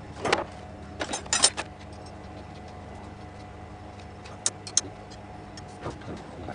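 Steady machine hum in a metalworking shop, with a few sharp metallic clicks and knocks from tools or parts being handled, the loudest cluster about a second in and single clicks later.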